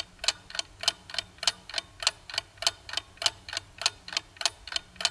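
Clock-ticking sound effect, a steady, even tick at about three ticks a second, timing the pause left for answering a quiz question.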